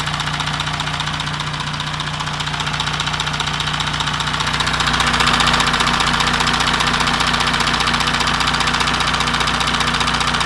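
Audi Q7's 3.0 TDI V6 diesel (CVMD) idling, heard close up at the timing-chain tensioner, with a fast, even ticking clatter that gets louder about five seconds in. This is the engine knock the owner complains of, which the mechanics put down to the timing-chain tensioner.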